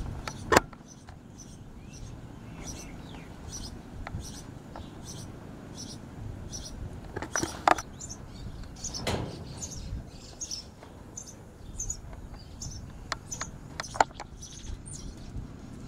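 Birds chirping, short high calls repeating every half second to a second, with a few sharp knocks scattered through.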